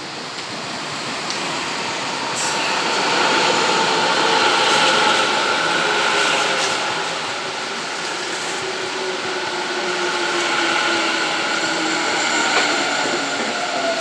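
Tobu 50000-series electric train pulling in and braking. The wheels rumble on the rails under a motor whine whose tones fall steadily in pitch as the train slows. It is loudest a few seconds in as the cars pass close by.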